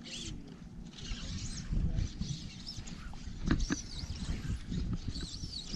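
Wind noise on the microphone over open water, with several high, wavering bird chirps from a little past halfway, and a few soft knocks among them.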